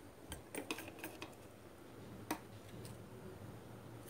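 Faint scattered clicks and scrapes of a thin metal tool working against a TV circuit board, a few quick taps in the first second and one sharper click about two seconds in, over a low steady hum.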